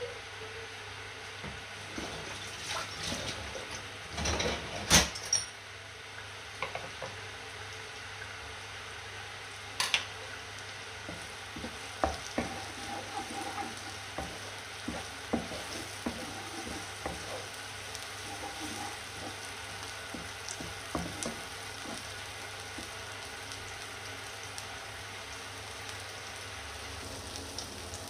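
Food frying in a pan with a steady sizzle, with scattered clicks and knocks of a utensil against the pan and a louder clatter about five seconds in.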